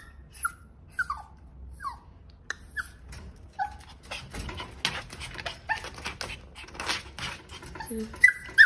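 A dog whining in short, high-pitched whimpers that fall in pitch, repeated about every half second. In the middle, scratchy rustling noise joins in for a few seconds.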